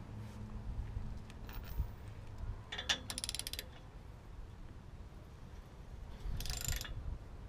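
Hand socket ratchet clicking in two short runs of rapid clicks, about three seconds in and again near the end, as the clamp on an exhaust tip is tightened.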